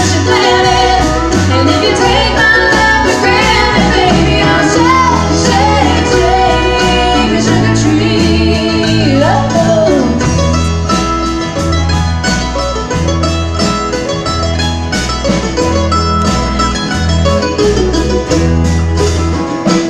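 Live country band playing: a woman's lead vocal over guitars, bass, keyboards and drums with a steady beat. The singing ends about halfway through and the band plays on.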